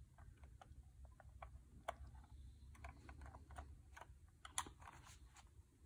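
Faint, irregular small clicks and taps of a thin metal hobby blade against a model train's plastic body shell and chassis as the shell is coaxed back onto its clips, with two plainer clicks about two seconds and four and a half seconds in.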